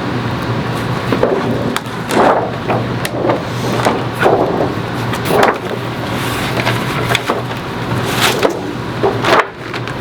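Irregular rustles and short light knocks of materials being handled, over a steady fan-like hum.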